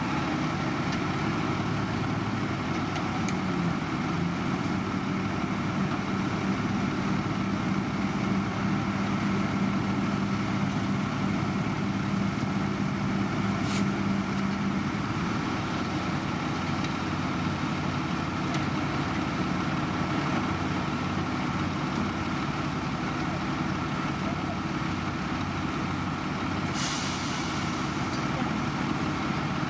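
Heavy diesel road-construction machinery running steadily, with a held low tone that stops about halfway through and a short hiss near the end.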